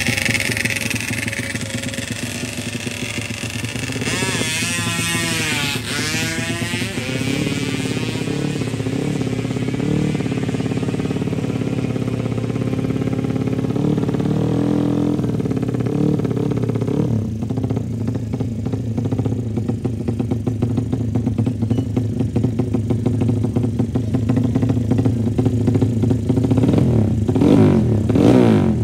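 Suzuki Satria FU-based drag motorcycle's single-cylinder four-stroke engine running and being revved on the start line, with a stretch of up-and-down pitch sweeps about four to seven seconds in and getting louder near the end.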